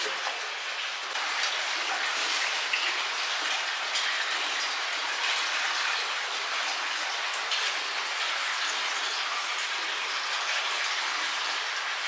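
Steady rush of flowing water, growing louder about a second in.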